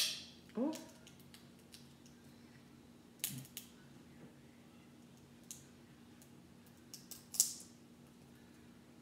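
Crab shell cracking and snapping as it is broken open by hand for the meat: a few sharp cracks, the loudest right at the start, others about three seconds in and near the end.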